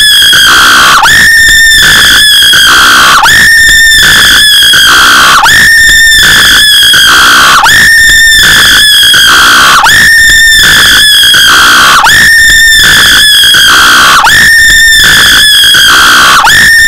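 A short, high scream looped over and over, about once a second. Each cry jumps up at once to a high held pitch and then tails off. The loop plays very loud, near full scale.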